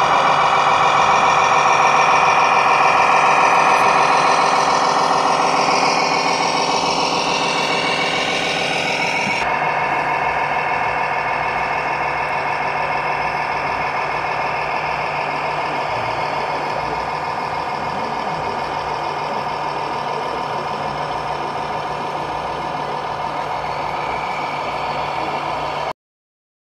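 Steady diesel truck engine sound from a scale RC MAN tipper truck's sound module. Its tone changes suddenly about a third of the way through, and it cuts off abruptly just before the end.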